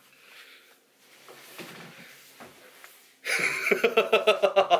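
Faint rustling and shuffling, then about three seconds in a man starts laughing loudly in quick, even 'ha-ha' pulses.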